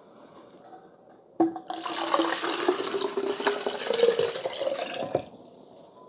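A clink about one and a half seconds in, then about four cups of water poured from a glass measuring cup into a cold brew coffee pitcher for about three and a half seconds, the pitch of the filling rising as the pitcher fills, before the stream stops.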